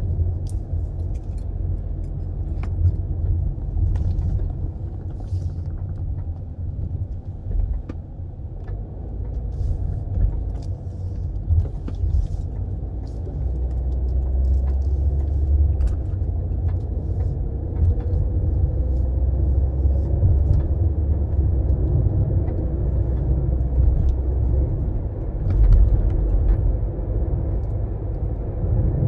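Steady low rumble of a car's engine and tyres heard from inside the cabin while driving through town streets, with a few faint clicks and rattles. The engine note rises briefly about two-thirds of the way through as the car picks up speed.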